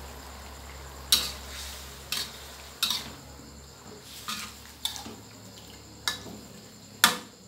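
A metal spatula scraping and knocking against a steel wok as catfish and eggplant in a wet curry sauce are stirred, with about seven sharp scrapes, the loudest near the end, over a faint sizzle.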